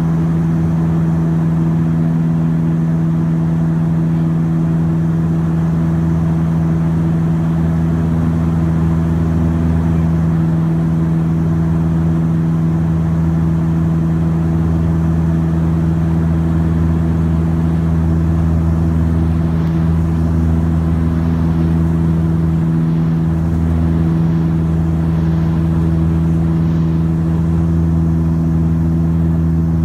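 Saab 340's twin General Electric CT7 turboprops heard inside the cabin on the descent to land: a loud, steady propeller drone with a strong low hum, and a deeper throb beneath it that swells and fades every few seconds.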